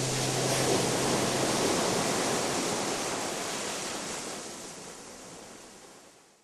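Sound effect for an animated production logo: a swell of rushing noise that peaks about a second in, then fades away slowly until it ends in silence. A low held note of the closing music dies out in the first second or so.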